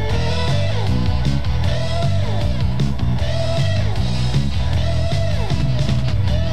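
Rock music with electric guitar over a steady bass line, the guitar notes sliding down in pitch several times.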